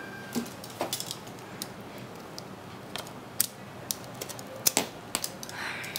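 Irregular sharp clicks and crinkles from fingers picking at the plastic shrink-wrap and tab on a cardboard graphics-card box.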